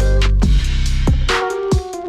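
Electronic music with a heavy bass line, drum hits and pitched synth notes.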